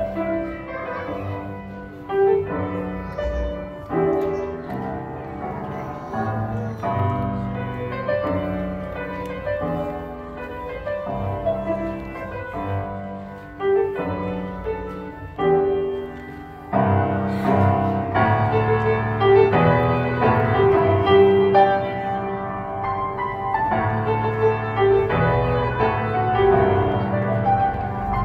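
Solo grand piano played at a recital, a melody over chords, growing louder and fuller about two-thirds of the way through.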